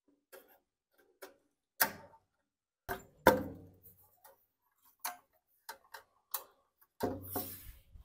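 Irregular metallic clicks and knocks of a screwdriver and parts being handled as the fuel tank and carburetor assembly are worked loose from a small Briggs & Stratton engine. There are a few louder clunks about two to three seconds in and a short scraping rattle near the end.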